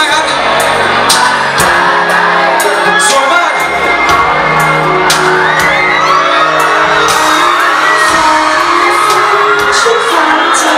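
Live band playing loud through a PA, with a male singer on microphone and drum and cymbal hits keeping the beat, while the crowd whoops and shouts along.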